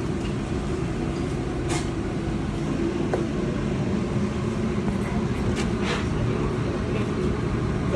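Kärcher WD 4 wet-and-dry vacuum cleaner running steadily, with a low hum under the rush of air and a few light knocks of the hose or nozzle.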